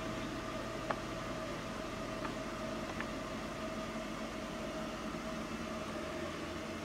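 Steady indoor background hum with a faint steady tone, like a fan or appliance running, and a few faint ticks about one, two and three seconds in.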